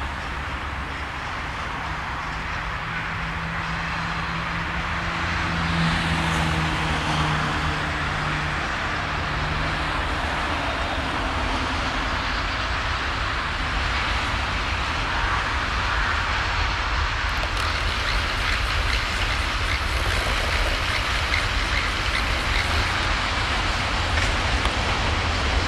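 Electroputere 060-DA diesel-electric locomotive with a Sulzer engine running under load as it hauls a freight train, with the wagon wheels rolling on the rails. The engine gives a low steady drone, and a humming tone in it stops about ten seconds in.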